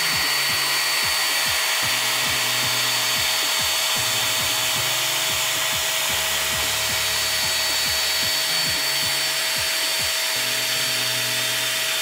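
Revlon One Step hair dryer brush blowing on its high setting: a steady rush of air with a thin motor whine, as the paddle brush is drawn through hair.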